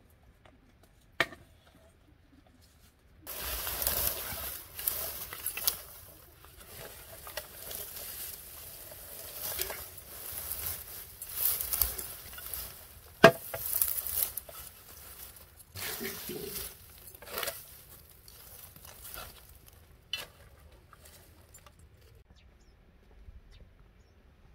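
Dry straw stalks rustling and crackling as they are pushed into a clay tandoor pit. The noise starts about three seconds in and dies away near the end, with a sharp crack about thirteen seconds in.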